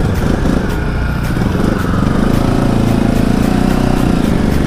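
Motorcycle engine running steadily as the bike rides off, heard from the rider's seat.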